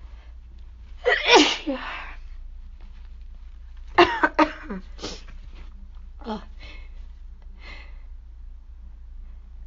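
A woman sneezing, breathy and slightly squeaky because her voice is nearly gone from illness: one long sneeze about a second in, then a quick run of three sharp ones around four seconds and a few fainter catches after. The sneezes are brought on by sneezing powder in her nose.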